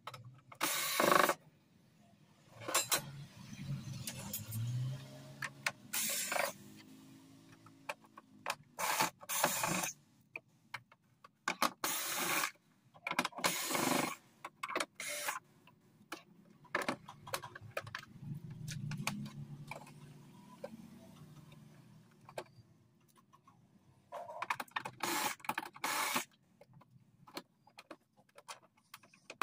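A metal wall-mount bracket being unscrewed and handled on the plastic back of an LCD TV: about a dozen short scraping and clattering noises, each under a second. Twice a low hum rises and falls.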